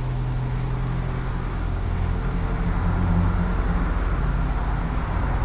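Steady low mechanical hum, swelling slightly about halfway through.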